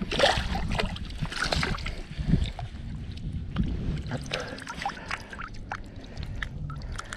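Water lapping and gurgling, with scattered small clicks and knocks over a steady low rumble.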